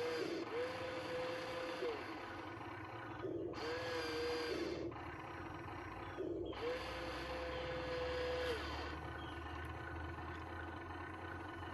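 Excavator working: its hydraulics whine three times, each whine holding one steady pitch for one to two seconds, rising as it starts and dropping as it stops. A low engine rumble runs underneath.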